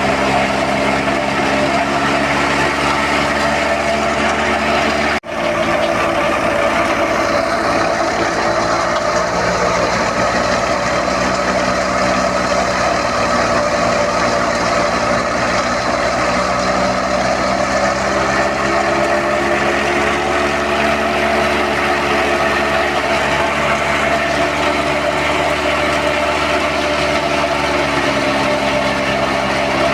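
Wheat thresher and the tractor engine driving it, running steadily under load. The sound briefly cuts out about five seconds in.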